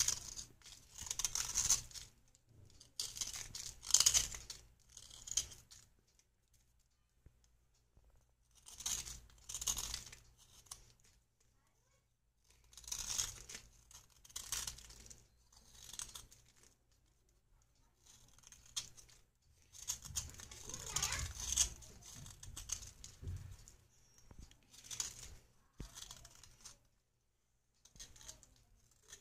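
A knife blade scraping a water-soaked red bar, shaving its softened surface off into crumbs. The strokes come in clusters of quick scrapes with short pauses between them.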